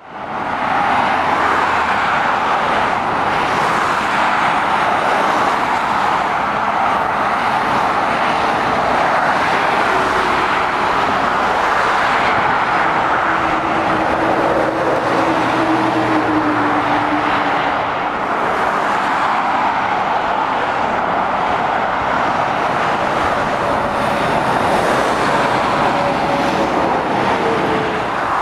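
Steady road traffic noise from cars and lorries driving along a two-lane road, mostly a continuous tyre-and-engine rush. About halfway through, a lorry's low engine hum stands out as it passes.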